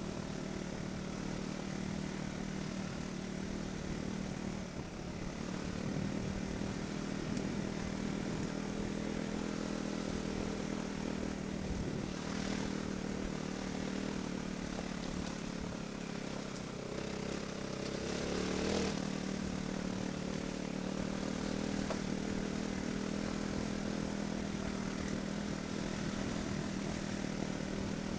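Single-cylinder trail motorcycle engine running at a steady low speed over a rough dirt track, with wind and track rumble, briefly rising about two-thirds through.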